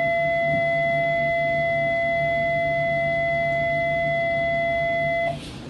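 A steady pitched tone held at an even level for about five seconds, then cut off suddenly, over the low steady hum of the amphibious bus's engine.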